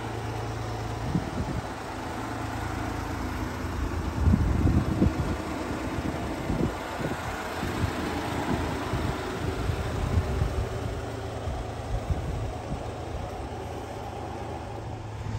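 Honda Acty truck's small three-cylinder engine idling steadily, with irregular low buffeting of wind on the microphone.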